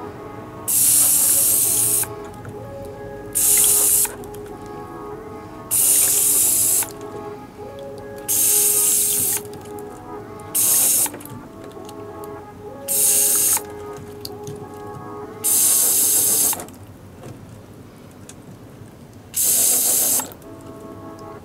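Shower-nozzle spray bottle spraying water over freshly cut Euphorbia offsets to rinse off their white latex sap, in about nine short hissing spurts with pauses between. Soft background music runs underneath.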